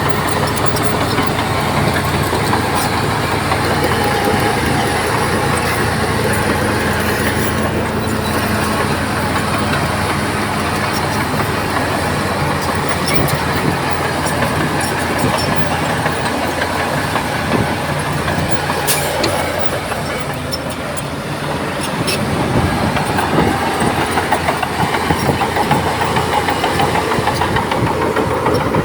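Crawler bulldozer's diesel engine working steadily under load, with clanking from its steel tracks. The engine eases briefly about two-thirds of the way through, then picks up again.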